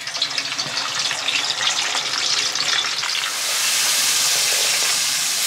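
Small whole fish frying in hot oil, a crackling sizzle that swells into a louder, steady hiss about three seconds in.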